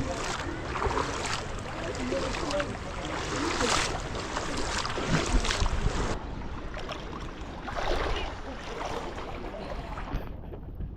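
Fast-flowing floodwater rushing and splashing across a flooded road.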